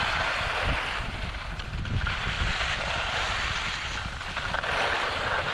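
Wind rushing over the microphone and skis hissing and scraping on packed snow during a fast downhill run, the hiss swelling and fading every second or two over a low buffeting rumble.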